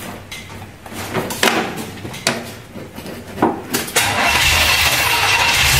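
Holden 253 V8 cranking on the starter in uneven pulses, then firing and catching about four seconds in and running with a building low rumble: it starts on the freshly reset distributor timing.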